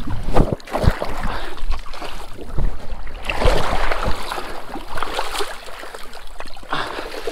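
Shallow river water splashing and sloshing as a white sturgeon is brought to the rocky edge and grabbed by hand, with irregular knocks and a low rumble from handling and wind on the body-worn microphone.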